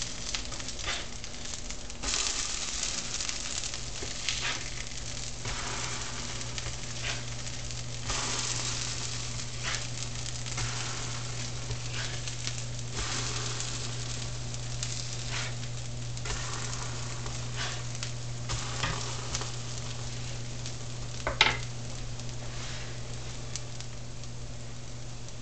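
Chia-seed pancakes sizzling in butter on a hot flat grill, a steady frying hiss with a few small clicks and one sharper click about 21 seconds in. A steady low hum runs underneath.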